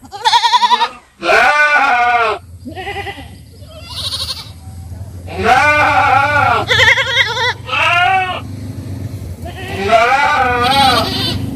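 Goats bleating repeatedly: a string of about eight loud calls, each with a quavering, wavering pitch.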